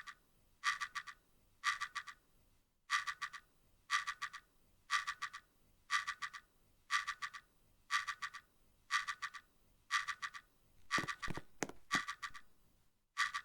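Industrial ceiling fan making a short, pitched squeaking chirp that repeats very evenly about once a second as it turns. A few low knocks come near the end.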